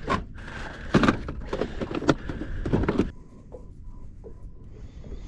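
Knocks, clicks and rattling of fishing tackle being handled as a green prawn lure is put on, dying down after about three seconds.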